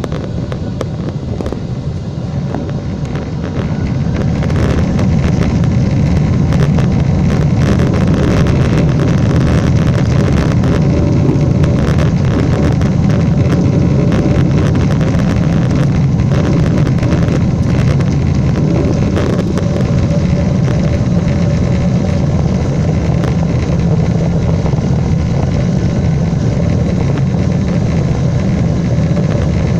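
Boeing 747's jet engines heard as a loud, steady low rumble inside the cabin, swelling about four seconds in, with rattling clicks through the next dozen or so seconds.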